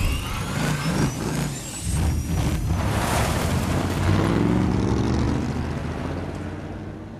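Supercharged car engine revving hard, its blower whine rising in pitch over the first couple of seconds, then running loud under load before the sound eases off near the end.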